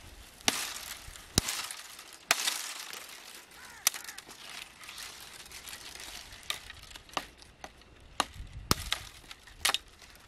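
Dry tree branches cracking and snapping as they are pulled and hacked off with a small hatchet. A string of sharp cracks with twigs rustling between them; the loudest cracks come in the first few seconds, and smaller ones follow later.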